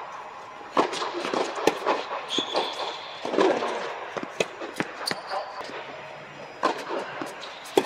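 A tennis rally on an indoor hard court: sharp pops of racquets striking the ball and the ball bouncing, about eight strikes spaced through the rally, echoing in the large dome.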